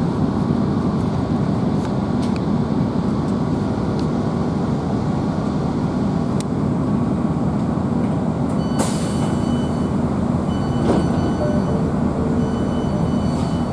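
Inside a GWR Class 165 diesel multiple unit on the move: steady running noise of the underfloor diesel engine and the wheels on the rails. About halfway through a brief hiss comes in, followed by a few short, high-pitched squeals that repeat.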